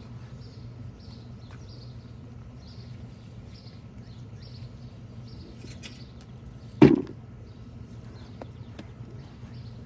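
Hand digging through soil in a deep bucket, with faint scrapes and clicks and one loud sharp knock about seven seconds in.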